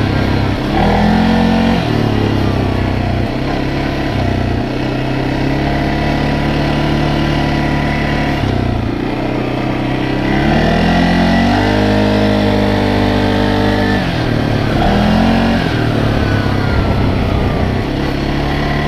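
CFMoto CForce 600 ATV's single-cylinder engine running under way in high range, revving up and easing off several times: the pitch climbs about half a second in, dips around nine seconds, climbs highest from about ten to fourteen seconds, then settles.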